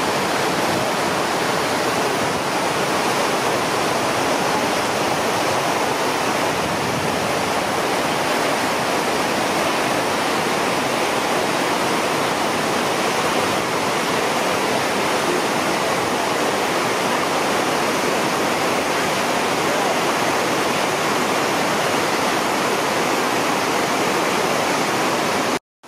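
River whitewater rapids rushing over rocks: a loud, steady roar of churning water, cut by a brief dropout just before the end.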